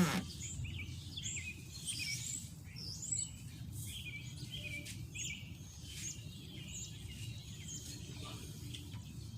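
Songbirds chirping and twittering in many short, quick calls throughout, over a steady low background rumble, with a few faint clicks.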